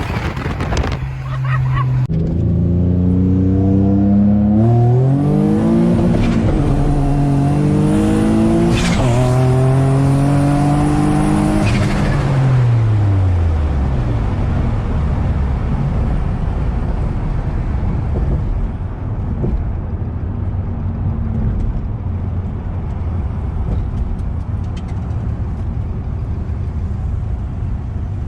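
Single-turbo Nissan G35's V6 engine pulling hard under full throttle, its pitch climbing through several gear changes, then lifting off about twelve seconds in and winding down. The rest is steady road and wind noise at cruising speed.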